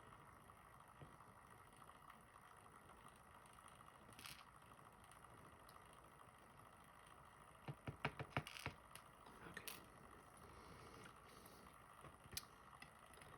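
Near silence, broken by a quick run of small clicks about eight seconds in and a few single clicks later: tiny metal lock pins and springs being handled and set into a sorting tray.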